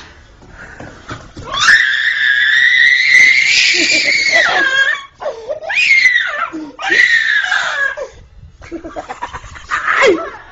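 A toddler screaming and crying: one long, high-pitched scream from about two seconds in, followed by several shorter cries.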